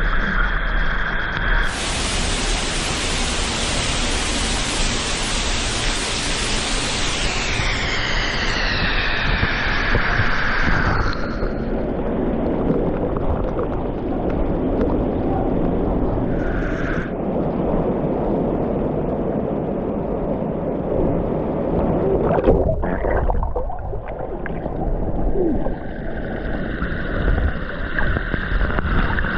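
Steady rush of falling water from a waterfall. For the first ten seconds or so a brighter hiss sits on top of it, then sweeps down in pitch and fades out.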